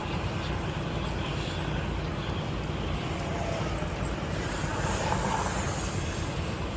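Semi-truck driving slowly: a steady low engine and road rumble at a constant pace.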